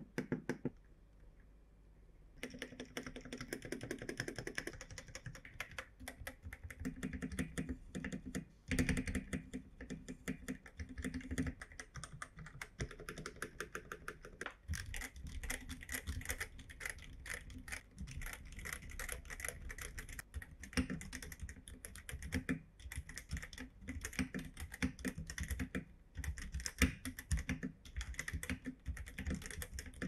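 Typing on a Reccazr mechanical keyboard: fast, continuous keystroke clicks that start about two seconds in.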